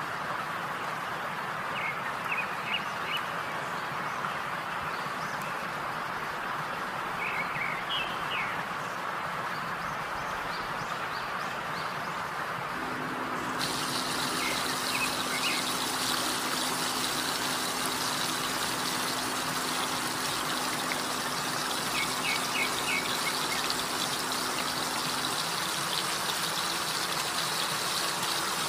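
Hot oil sizzling steadily as battered chicken pieces deep-fry in a wok, the sizzle starting about halfway through, with a steady low hum under it. Before that, a steady hiss.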